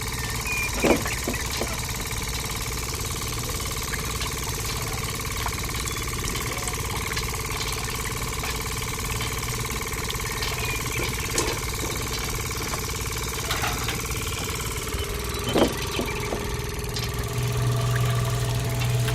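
Small motors of miniature model construction machines running steadily, with a few sharp knocks along the way. A louder, deeper hum comes in near the end.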